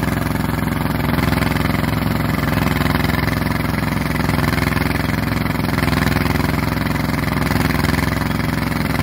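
Horizontal auger boring machine's engine running steadily as it bores a pipeline casing pipe through the ground.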